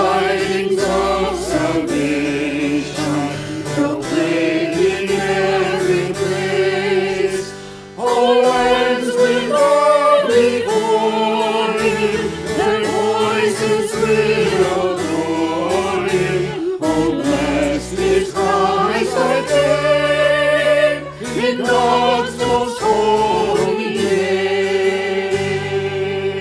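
Choir singing a hymn over sustained low instrumental notes, with a short break between phrases about eight seconds in.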